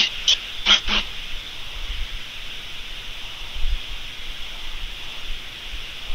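Steady background hiss, with four brief sharp sounds in the first second.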